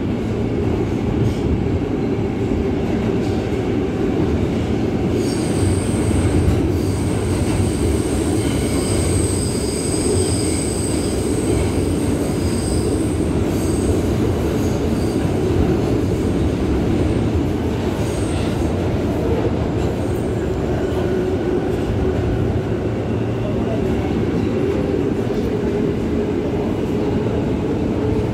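New York City L train subway car running, heard from inside the car: a steady rumble of wheels on rail. About five seconds in, high-pitched wheel squeal comes in and fades out again by around fourteen seconds.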